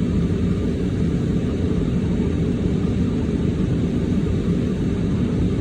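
Steady low rumble of a car heard from inside its cabin, the engine running while it sits still.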